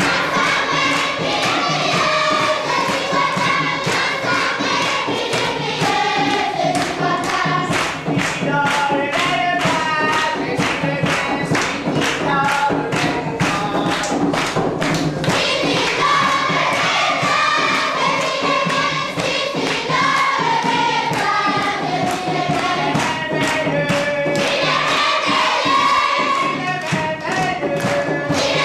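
A group of children singing together with rhythmic hand clapping, about two to three claps a second, keeping a steady beat under the song.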